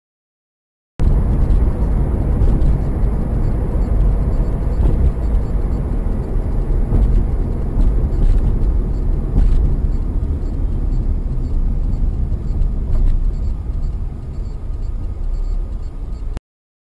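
Engine and road noise of a moving car picked up inside the cabin by a dashcam, steady and heavy in the lows, with a few faint clicks. It starts about a second in and cuts off suddenly near the end.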